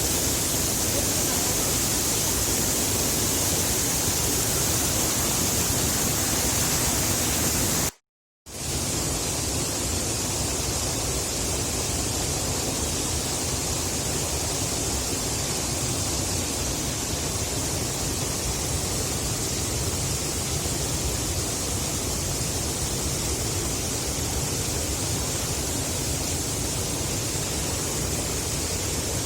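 Waterfall rushing: a steady noise of falling water. It drops out for about half a second about eight seconds in, then carries on a little quieter.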